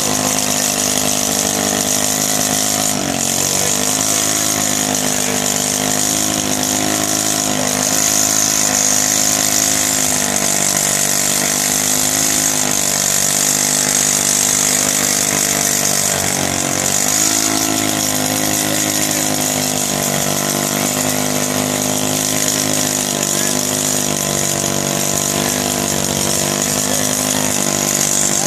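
Racing go-kart engine held at high revs through a tyre-smoking burnout, with a steady high hiss over it. The revs dip briefly twice, about three seconds in and again past the middle, then pick back up.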